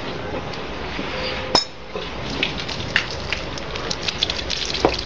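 Water draining from a spraying machine's drain outlet and trickling onto a wet concrete floor, with a patter of small splashing clicks. A sharp knock comes about one and a half seconds in.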